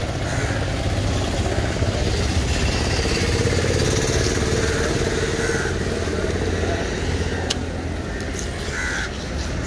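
A motor vehicle engine running steadily, with a slightly higher engine note for a few seconds in the middle.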